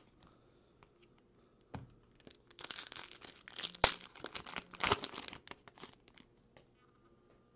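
Foil wrapper of a trading-card pack being torn open and crinkled in the hands, a dense run of crackling for about three seconds starting two and a half seconds in, with a sharp snap near the middle. A soft knock comes earlier, and a few lighter ticks follow as the wrapper is set down.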